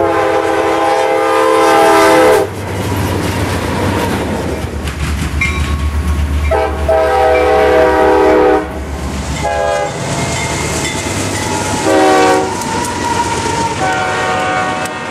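CSX diesel freight locomotives passing close by, their air horns sounding in a series of blasts: two long ones in the first half, then several shorter ones. Underneath runs the low rumble and clatter of the train's wheels on the rails.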